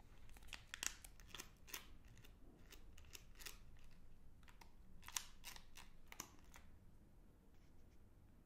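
Crinkling of a Magnum Double Chocolate bar's wrapper handled between the fingers: a quick run of sharp crackles that thins out about two thirds of the way in.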